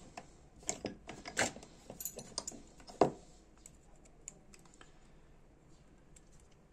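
Quick metal clicks and taps from a Dupont L1 lighter being handled and worked apart by hand, the sharpest click about three seconds in. After that, only a few faint ticks.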